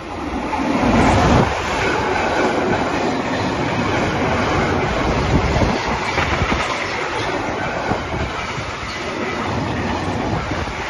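A freight train of empty car-carrier wagons passes close by, hauled by an electric locomotive. The locomotive's approach swells to the loudest point about a second in, then the wagons roll past with steady clattering and repeated clicks of the wheels over the rail joints.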